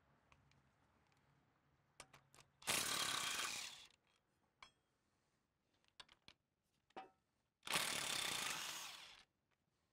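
Cordless impact wrench with an 18 mm socket hammering bolts loose, in two bursts of about a second and a half each. Sharp clicks of the socket being fitted onto the bolts come before each burst.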